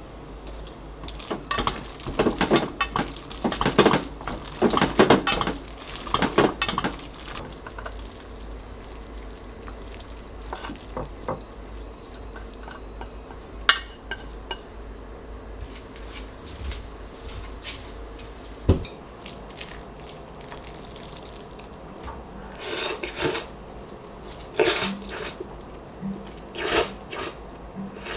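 Dishes and utensils clinking and knocking in scattered bursts: a dense run of clatter in the first several seconds, a couple of single knocks in the middle, and more clatter near the end.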